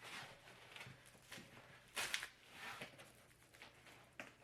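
Cardboard box and packing material rustling and scraping in short bursts while a tightly packed printer is worked out of it, with the loudest scrape about two seconds in.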